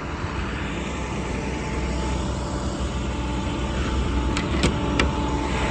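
International DuraStar's MaxxForce diesel engine running steadily at idle, with a few sharp clicks in the last second or so.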